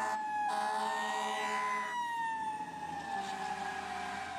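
Toy fire truck's electronic siren wailing, its pitch rising slowly for about two seconds and then falling gradually.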